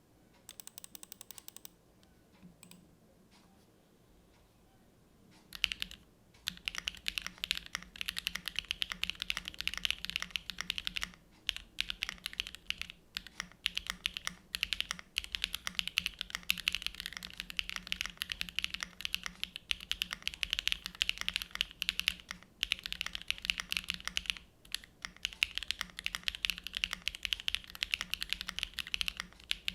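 Typing on a Neo Ergo split mechanical keyboard with SWK Neon linear switches on a polypropylene plate, gasket-mounted, with PBT keycaps: a dense, continuous run of key strokes. It is nearly quiet for the first five seconds, with a short run of rapid faint ticks near the start, before the steady typing begins.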